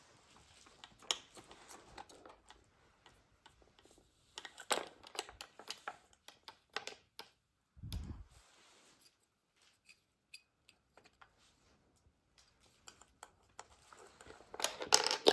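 Scattered clicks and taps of light plastic as a cat paws at a plastic food-puzzle board, with one low thump about eight seconds in and a burst of louder clattering near the end as a clear plastic cup is handled.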